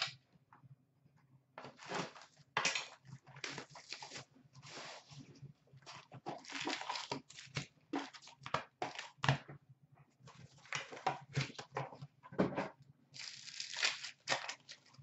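A box of hockey card packs being torn open and its packs pulled out and set down on a glass counter: a string of irregular rustling, crinkling and tearing of wrapper and cardboard, with a few sharp taps.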